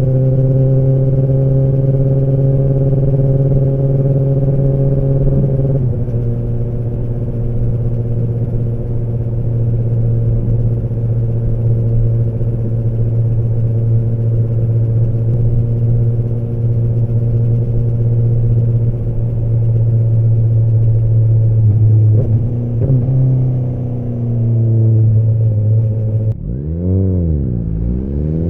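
Kawasaki ZX-10R inline-four engine and exhaust at a steady, moderate cruise, pitch stepping down slightly about six seconds in. Near the end the revs dip sharply and then climb again.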